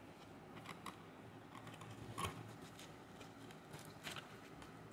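Faint handling noise: a few light clicks and rustles of cardboard pizza boxes and slices being touched. The sharpest click comes about two seconds in.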